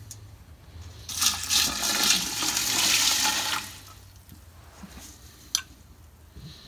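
Distilled water poured from a measuring cup into a stainless steel pot onto lye beads and silica cat litter, to make water glass. The splashing pour starts about a second in and lasts about two and a half seconds. A single short click comes near the end.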